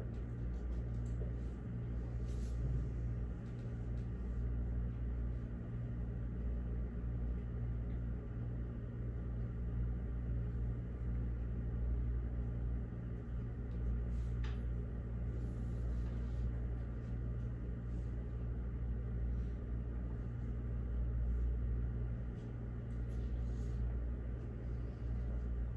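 Room tone: a steady low mechanical hum, with a few faint clicks scattered through it.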